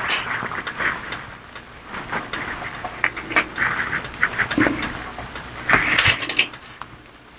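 A small metal ball chain rattling and clicking as it is handled, in irregular bursts of many quick clicks.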